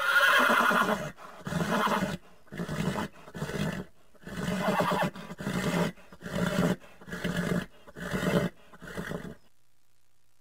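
Horse neighing: one high, wavering whinny, then a string of about ten shorter, lower calls roughly once a second that grow fainter near the end.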